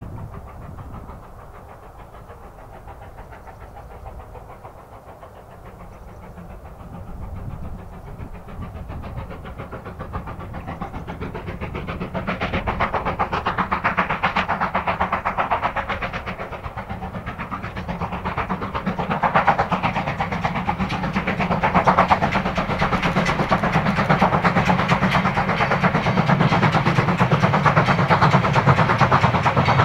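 A steam locomotive hauling a passenger train under heavy steam, its exhaust beats coming in a steady rhythm that grows much louder from about a third of the way in as it approaches.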